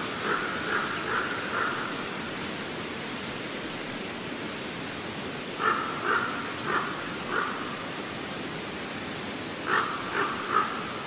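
An animal calling in three series of four or five short, evenly spaced calls: one at the start, one about halfway through, one near the end. The calls sound over a steady rushing hiss.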